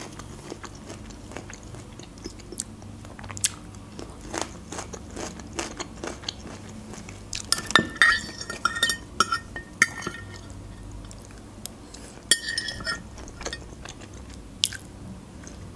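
Metal fork scraping and clinking on a ceramic plate as crumbs are gathered up, twice in longer runs, with close-up chewing and small crunches in between.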